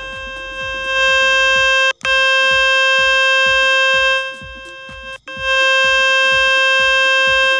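Steady buzzing tone from the Fix My Speakers web page, played through the phone speaker to shake dirt or moisture out of a clogged speaker. It gets louder about a second in, cuts out for an instant near two seconds, and drops back for about a second past the middle as the volume is moved. Background music with a steady low beat runs under it.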